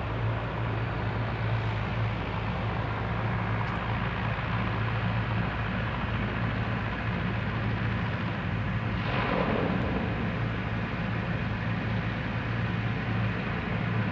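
ATR 42-300 turboprop engines running with a steady low drone, with a brief rush of noise about nine seconds in.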